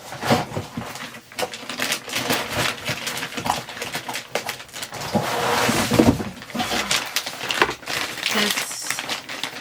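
Packaging rustling and crinkling with repeated knocks and clicks as a desktop computer is taken out of its box. The rustling is densest about halfway through.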